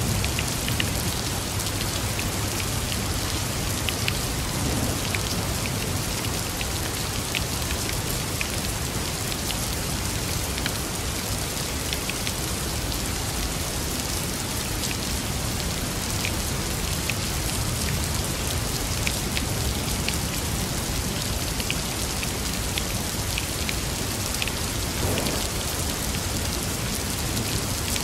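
Steady rain falling during a thunderstorm, with the ticks of individual drops hitting a surface close by throughout.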